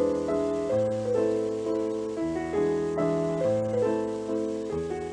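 Background piano music: a slow melody of struck notes that ring and fade.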